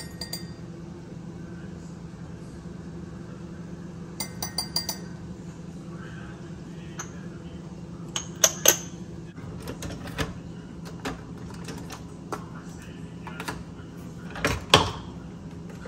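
A metal spoon clinking against a glass sugar jar and a ceramic mug as brown sugar is spooned out: a quick run of light, ringing clinks about four seconds in and two sharper clicks a little past the middle. Near the end a Keurig brewer's lid is handled and shut with a clunk, the loudest sound, over a steady low hum.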